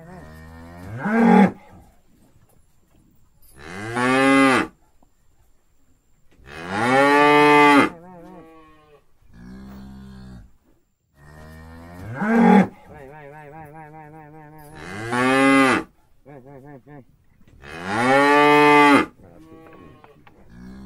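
Several cows mooing over and over: six loud, drawn-out moos, each rising and then held for about a second, come roughly every three seconds, with quieter, lower moos from other cows in between.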